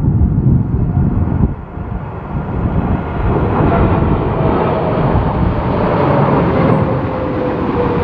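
Boeing 777-300ER's GE90 jet engines on landing approach, with a whine that falls slowly in pitch from about halfway through as the airliner passes. Heavy gusting wind buffets the microphone with a low rumble that rises and dips.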